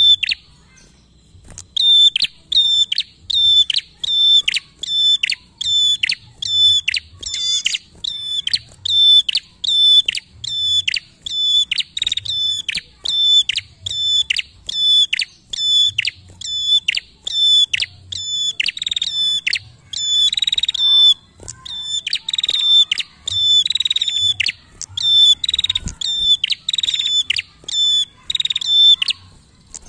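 A caged prenjak singing: a long run of sharp, high notes repeated evenly, a little more than one a second, after a brief pause about a second in.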